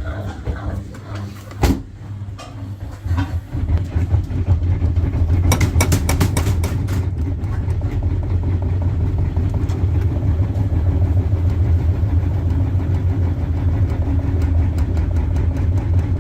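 Washing machine knocking as its drum spins: the low drone builds about three to four seconds in and then runs fast and steady. A rapid run of sharp knocks comes around five to seven seconds in.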